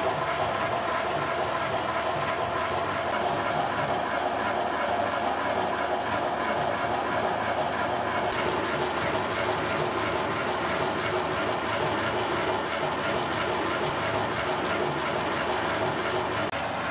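Universal milling machine driving a homebuilt hobbing attachment, the hob cutting the teeth of a spur gear: a steady metallic machining noise with a few steady whining tones over it.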